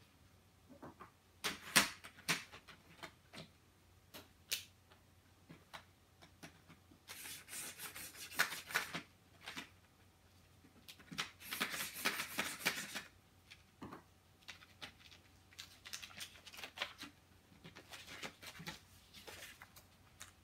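Pen scratching lines across paper in strokes of a second or two, the longest two around the middle, between light clicks and knocks of the LEGO Technic plastic ruler parts as its arms are moved. A softer rustle of the paper sheet near the end.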